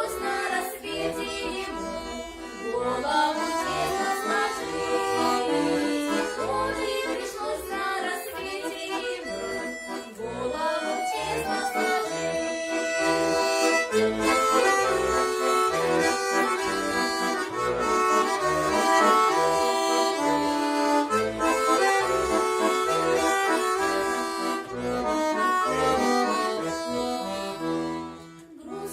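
Accordion playing a tune, the melody over steady rhythmic bass notes, with a short pause near the end of the phrase.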